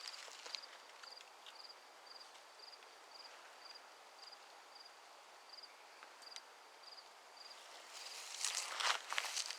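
A cricket chirping steadily, a short trilled chirp about twice a second. Near the end, footsteps rustle through grass and brush, louder than the chirping.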